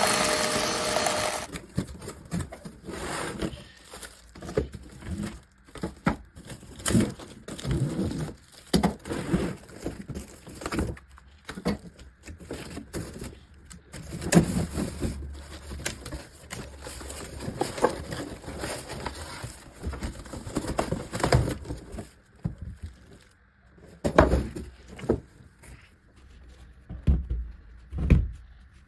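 Packaging being handled during an unboxing: irregular knocks, taps and rustling as a cardboard box and its contents are opened and moved about, with a few heavier thumps near the end.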